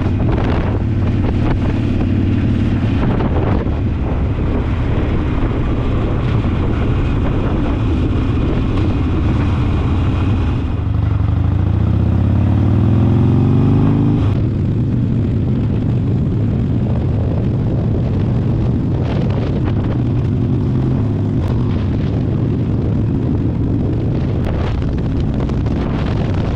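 Harley-Davidson V-twin motorcycle with a slip-on muffler running at road speed, with wind noise on the microphone. About eleven seconds in, the engine note rises for a few seconds as the bike accelerates, then drops suddenly at an upshift and settles back to a steady cruise.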